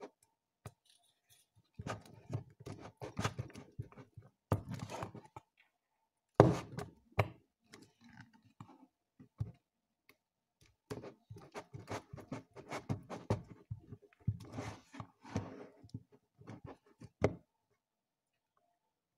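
A spatula stirring glue slime, just activated with borax-glycerin, in a plastic tub: irregular bursts of scraping and knocking against the plastic, with the loudest knock about six seconds in.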